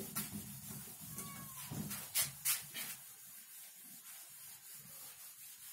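A whiteboard being wiped by hand, a hand rubbing across the board, with a short squeak about a second in and two sharp knocks a little after two seconds.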